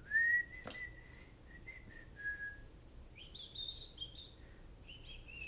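A person whistling a few idle notes: a held note that slides up and then steps down, then a higher run of short notes. A sharp click comes under a second in.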